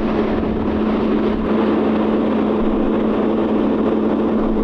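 Excavator's diesel engine running steadily at a constant pitch, with no change in speed.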